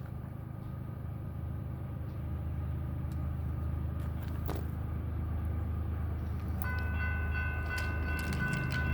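Union Pacific diesel locomotives approaching, a low engine rumble growing steadily louder. About two-thirds of the way through, the locomotive's air horn starts sounding a steady chord of several notes.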